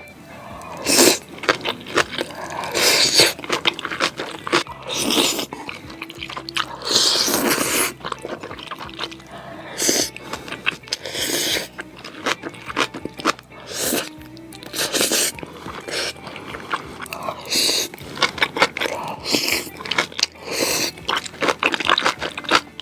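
A person eating spicy instant noodles close to the microphone: chewing and mouth noises in irregular bursts, with background music.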